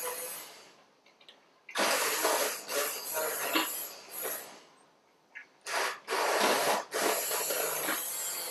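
Immersion blender pureeing chunks of roasted red pepper and shallot in a saucepan, run in two bursts: the first starts about two seconds in and stops after about three seconds, the second starts again about a second later and keeps going.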